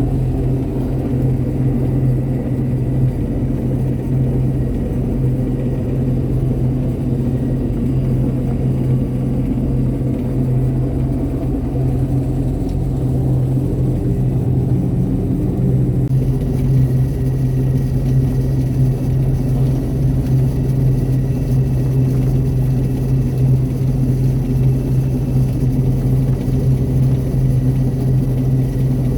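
Harvest machinery engine running steadily at working speed, a constant low hum, with a slight change in the higher part of the sound about halfway through.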